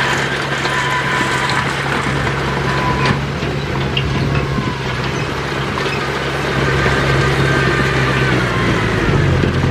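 Heavy diesel earthmoving machinery, a bulldozer and dump trucks, running steadily with a low engine drone. A steady high tone runs over it and stops about three seconds in.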